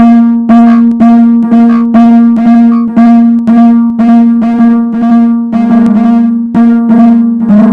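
Fire alarm notification appliance sounding in march-time code: a buzzy horn tone pulsed about twice a second.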